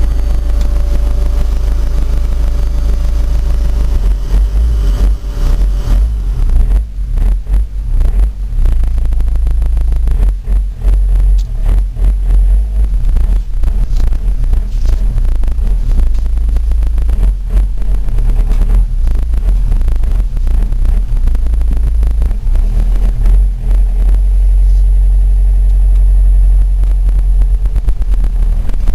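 Cab noise of a 2005 Fiat Ducato turbo-diesel camper on the move: a heavy low rumble with many short knocks and rattles through the middle. A steady engine hum comes up over the last few seconds.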